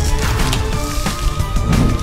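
Upbeat cartoon score music with a steady beat.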